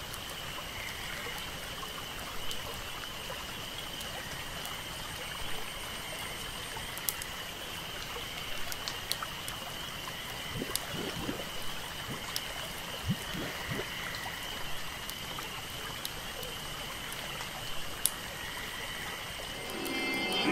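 Bayou ambience on a dark indoor boat ride: water trickling and lapping under a steady high thin chirring, with scattered small clicks. Music begins to rise right at the end.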